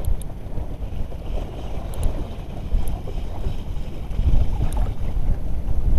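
Wind buffeting the microphone over choppy sea water, a heavy low rumble, as a Daiwa Exeler spinning reel is wound in against a hooked fish, with a few faint ticks.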